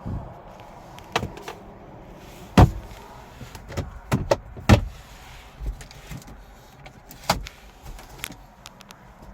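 2018 Hyundai Sonata's door and interior fittings being handled: a string of sharp clicks and knocks, the loudest about two and a half and four and a half seconds in.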